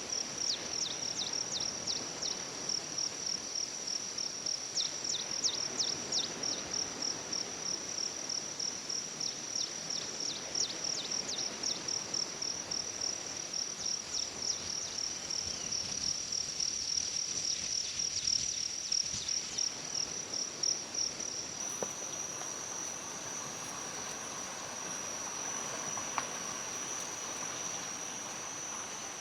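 Forest insects trilling in a steady high-pitched chorus, with repeated clusters of quick falling chirps over it. About two-thirds through, the chirps stop and the trill shifts slightly higher.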